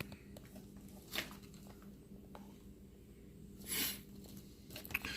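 Quiet room with a faint steady low hum, a few soft clicks and one brief rustle a little under four seconds in.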